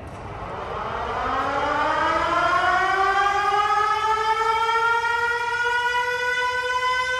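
Motor-driven siren winding up: its pitch rises steadily over the first few seconds, then levels off into a steady wail as it grows louder.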